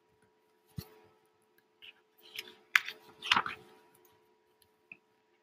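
A page of a hardcover picture book being turned: a soft thump about a second in, then paper rustling with a few sharp crinkles and taps in the middle as the page flips over.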